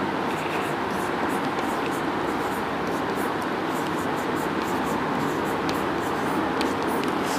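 Chalk writing on a chalkboard: scratchy strokes and small taps, over a steady background hiss.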